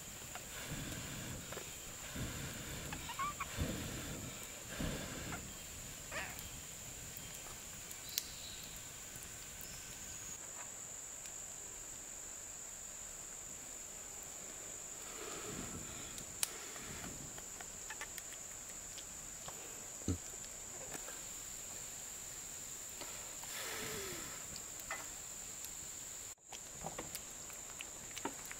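Steady high-pitched drone of forest insects, with scattered rustling and light knocks of handling or movement.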